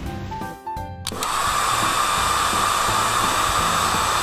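Cartoon car-wash air-dryer sound effect: a steady blowing noise with a strong hum in it, starting about a second in, over light background music.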